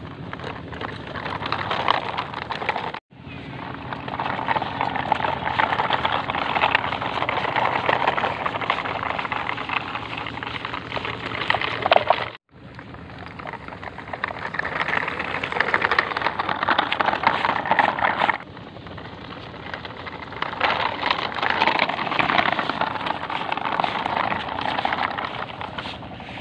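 Rustling and crackling of grass and dry dirt as toy trucks are pushed through them, with a faint low hum underneath. The sound breaks off abruptly twice, about three seconds in and about twelve seconds in.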